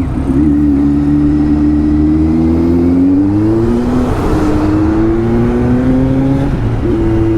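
Kawasaki Z900 inline-four with an Arrow full-system exhaust pulling under acceleration on the move, its pitch climbing steadily, dropping at an upshift about four seconds in, then climbing again.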